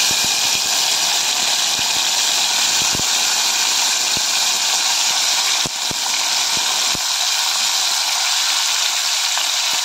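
Chopped tomatoes just dropped into hot oil in a pan, sizzling loudly: a steady hiss with a few sharp pops scattered through it.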